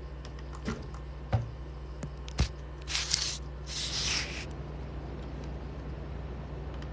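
Handling noise from a phone being held and moved: a few light clicks and rustles, then two short hissy rustles about three and four seconds in, over a steady low hum.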